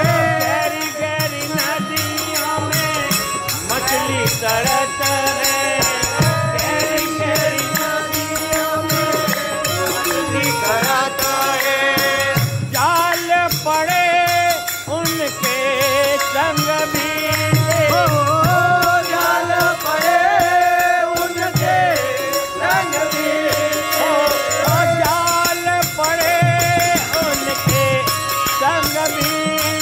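Hindi devotional bhajan music: a melody line over a drum beat and a fast, steady rhythm of high percussive ticks.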